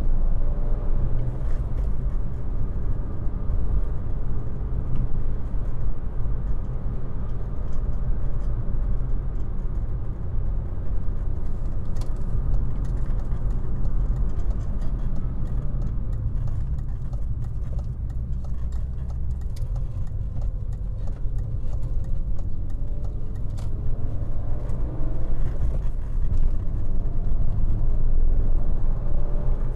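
BMW E36 M3's 3.0-litre straight-six and road noise heard from inside the cabin while driving, a steady low rumble with the engine note rising and falling with the revs and climbing near the end.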